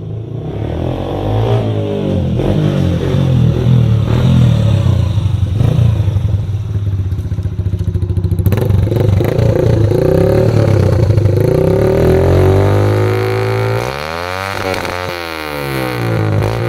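Yamaha YBR Factor 125's single-cylinder four-stroke engine running through an aftermarket Roncar aluminium oval exhaust with its baffle removed. The engine note rises and falls, loudest in the middle stretch and dropping back a little past two-thirds of the way through.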